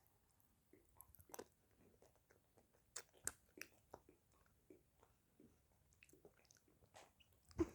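Faint chewing and crunching of a Cadbury Crunchie Blast ice cream bar, its milk chocolate coating with popping candy, heard as irregular small crackles and clicks.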